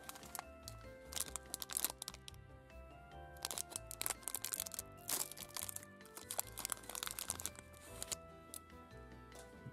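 A Black Thunder chocolate bar's metallic wrapper crinkling and tearing as it is pulled open by hand, in several crackly bursts. Background music plays throughout.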